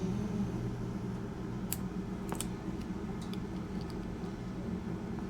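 A few light clicks of small chainsaw engine parts being handled and worked loose, over a steady low hum.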